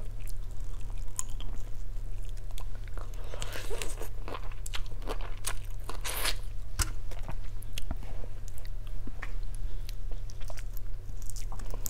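Grilled prawns being peeled and eaten: shells cracking and crackling under the fingers, with biting and chewing of the prawn meat, in an uneven run of small crunches and clicks over a steady low hum.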